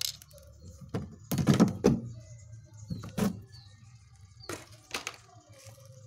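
Plastic rear cover of a Sharp twin-tub washing machine being pried loose and pulled off by hand: a run of knocks and plastic clatters, loudest about one and a half seconds in, with a few more thuds around three and five seconds.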